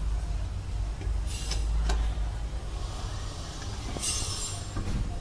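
Wheel bolts on an alloy car wheel being spun in and tightened with a steel lug wrench: metal clinks and scraping of the wrench on the bolts, with a few sharp clicks and a short rasp about four seconds in, as the wheel is refitted.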